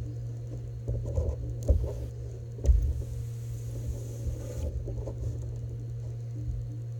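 AMT ultrasonic poultry welder spot-welding a perforated poly egg belt: a few sharp knocks as the gun's tip is set down on the belt, then a faint hiss for about two and a half seconds as it welds, over a steady low hum.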